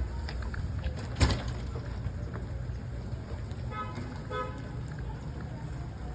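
Two short car-horn beeps about a second before the end, over a steady low outdoor rumble, with one sharp loud click about a second in.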